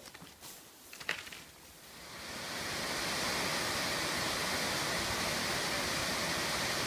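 Waterfall rushing, a steady even noise of falling water that comes in about two seconds in and then holds. Before it, a few brief clicks.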